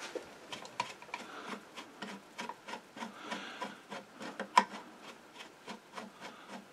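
A screw being run in with a screwdriver on the lifter shaft of a Singer 15-91 sewing machine: a run of faint ticks and scrapes, about two or three a second, with one sharper click about halfway through.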